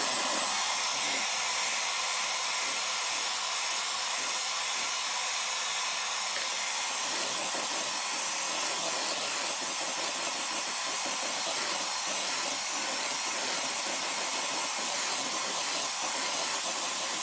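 Kenwood electric hand mixer running steadily, its beaters whisking a soft cream cheese mixture in a stainless steel bowl.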